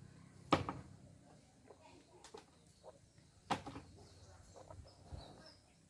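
Two sharp knocks about three seconds apart, with faint scattered rustling and ticking between them.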